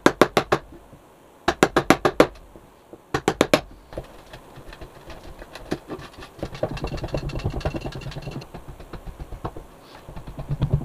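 Hinge screws being driven into a wooden hatch by hand: short bursts of four to six quick clicks, a few times over, with a stretch of denser, faster ticking over a low hum in the middle.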